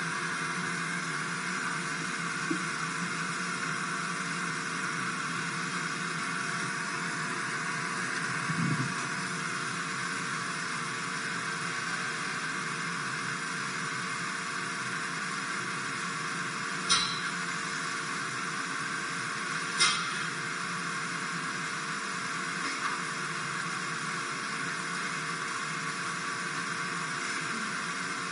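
Steady hiss with two sharp clicks about three seconds apart past the middle.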